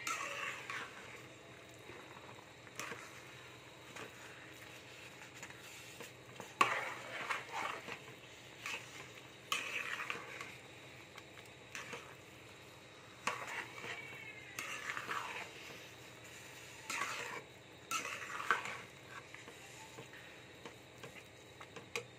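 Metal spoon stirring and scraping thick semolina halwa in a metal kadai. The scraping comes in bursts a few seconds apart, with occasional sharp clicks of the spoon against the pan.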